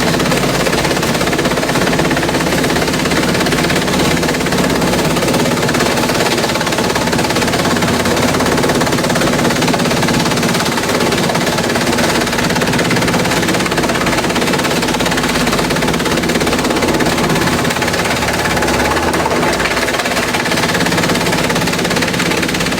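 Industrial bamboo shredder running under load: a steady, loud engine drone under dense, rapid cracking and clattering as the bamboo is chewed up.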